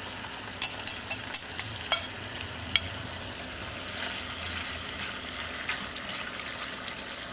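Marinade and fish sizzling steadily in a hot clay pot. Between about half a second and three seconds in comes a quick run of sharp clicks: chopsticks knocking against the ceramic bowl as the marinade is scraped out.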